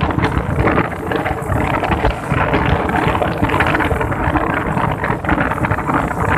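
Strong wind buffeting the microphone, a loud rumbling gusty noise that does not let up.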